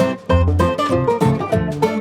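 Background music: upbeat plucked-string tune, banjo or guitar picking with a steady beat.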